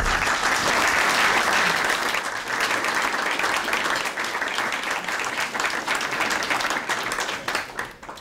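Applause from a roomful of people at the close of a speech, loudest in the first couple of seconds and thinning out toward the end.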